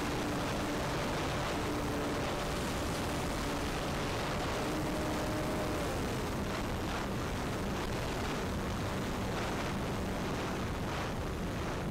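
Wind rushing over the wing-mounted camera of an electric RC plane in flight, with the faint steady hum of its brushless motor and propeller underneath. About six seconds in the motor's pitch glides down and stays lower, the throttle eased back.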